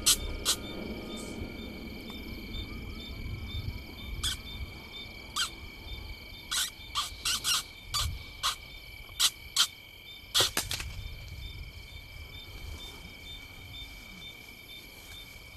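Night insects, crickets, trilling steadily on several high pitches, one of them pulsing evenly. A series of about a dozen sharp clicks or snaps falls over the first ten seconds or so, several close together around the middle and a last pair near ten and a half seconds; these clicks are the loudest sounds.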